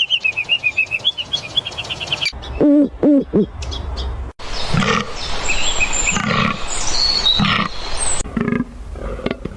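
Animal calls cut one after another: a fast high trill for about two seconds, then three short low pitched calls, the loudest part. After that comes a noisier stretch with scattered calls.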